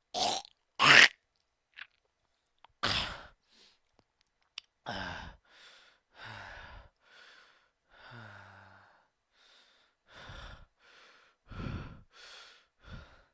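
A person coughing in about four loud, sharp bursts, the hardest about a second in. A run of quieter breathy exhales and sighs follows, roughly one a second, a few of them voiced with a falling groan.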